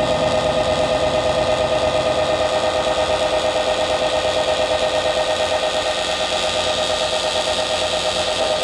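Live experimental electronic music from a tabletop electronics setup: a dense, steady drone with a rapidly fluttering mid-pitched tone over a grainy noise texture.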